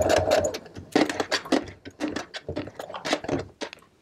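Brother household sewing machine stitching at a steady speed, stopping about half a second in. A string of irregular clicks and knocks follows as a lock stitch is made at the corner of the seam.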